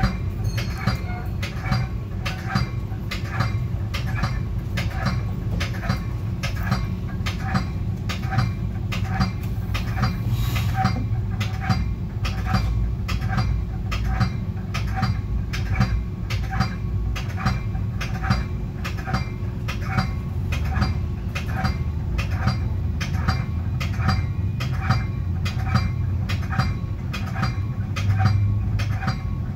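Metra commuter train cab car rolling along the track: a steady low rumble with a regular clicking about two times a second.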